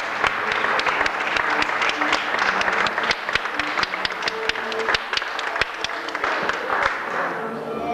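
Audience applauding with dense hand claps that thin out and fade near the end.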